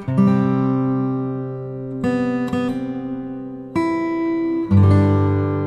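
Background music: acoustic guitar chords strummed and left to ring, a new chord every second or two.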